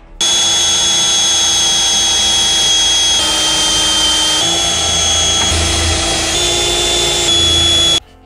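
Cordless drill drilling out the spot welds that hold the clutch pedal bracket in the cab. It runs steadily for about eight seconds, its whine stepping slightly up and down in pitch a few times as the load changes, then stops abruptly.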